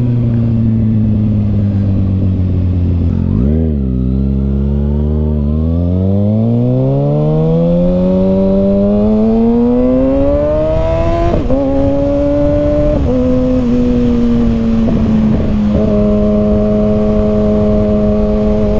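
2021 Kawasaki ZX-6R's inline-four engine through an M4 carbon slip-on exhaust, under way. The revs dip and recover a few seconds in, then climb steadily before dropping suddenly at a gear change about eleven seconds in. After a couple of smaller steps it holds a steady cruising note near the end.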